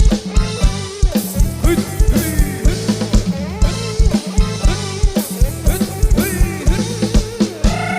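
Background music with a steady, fast drum beat, bass and a pitched melody with sliding notes.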